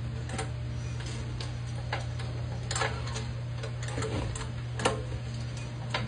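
Irregular clicks and light taps from hands working the decompression lever and recoil pull-starter of a small single-cylinder diesel engine that is not running. They sound over a steady low hum.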